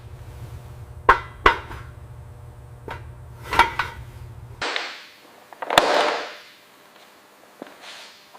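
Hand tools knocking and clattering in a workshop: a few sharp knocks, then two longer rushing, scraping noises, the second the loudest. A low steady hum cuts off abruptly about halfway through.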